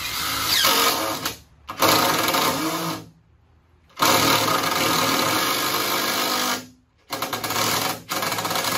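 Cordless drill-driver driving 2-1/2-inch deck screws through a wooden blocking piece into a floor joist. It runs in five bursts of one to two and a half seconds with short stops between, the motor speeding up at the start of each run.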